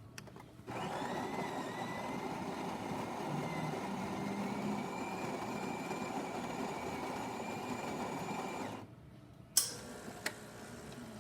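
Jura Impressa J6 super-automatic espresso machine's built-in grinder grinding beans for a shot: a steady whirring with a whine that rises and then holds for about eight seconds, then stops abruptly. About a second later comes a sharp clunk and a lighter click, typical of the brew unit moving into place.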